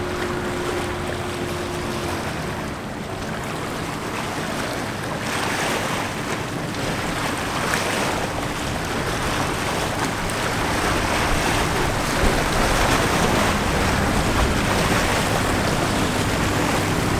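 Motorboat engine running at speed, mixed with the wash of its wake and waves, and wind on the microphone. The engine hum grows a little louder in the second half.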